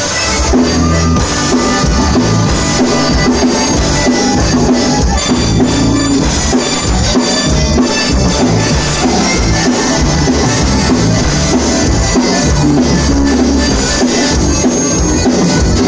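Live conjunto band playing: button accordion carrying the melody over a twelve-string bajo sexto, electric bass and drum kit keeping a steady beat, amplified through a PA.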